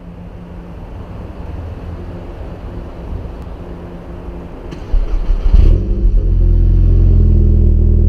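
Volkswagen Scirocco 2.0 TSI turbo four-cylinder heard at the tailpipes of its aftermarket Remus rear silencer. A fairly quiet low rumble, then about five seconds in a sharp burst and surge, after which the exhaust settles into a loud, steady, deep drone.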